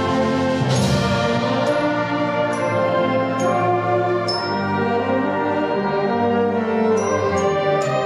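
Concert wind band of brass and woodwinds playing slow, sustained chords, with a crash about a second in.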